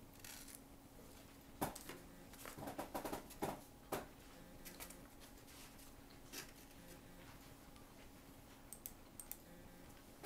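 Quiet chewing of a soft-shell beef taco, with scattered brief clicks and rustles from handling the food and its foam takeout container.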